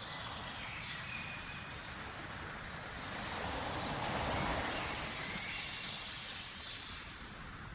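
Soft flowing-water ambience: a steady hiss that swells about halfway through and then eases off, with a few faint high tones over it.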